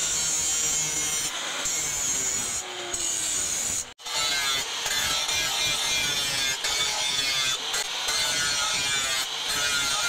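Angle grinder with an abrasive disc grinding a steel machete blade made from a car leaf spring: a steady, high grinding hiss. The sound drops out for an instant about four seconds in, then carries on.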